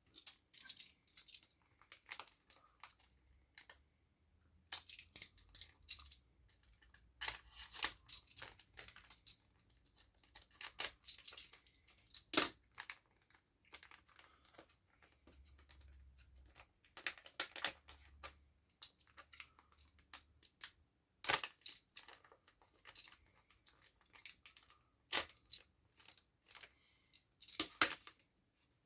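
Thin plastic backing film crackling and being peeled from an adhesive iPhone 6s screen gasket, in irregular bursts with a few sharp clicks.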